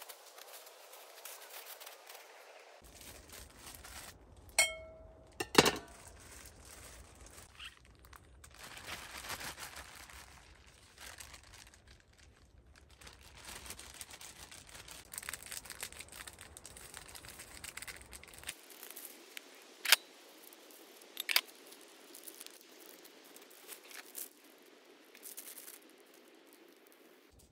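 Paper and plastic spice bags rustling and crinkling as they are squeezed and emptied into a glass bowl, with a few sharp clicks of things being handled or set down, two close together early on and two more later.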